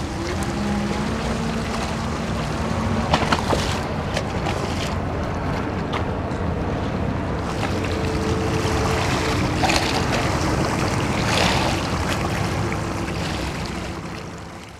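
Steady drone of a boat's engine with water rushing along the hull and wind buffeting the microphone, fading out near the end.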